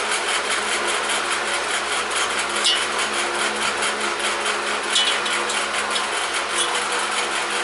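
Steady hum and whirr of a small motor running, with a couple of light clicks about three and five seconds in.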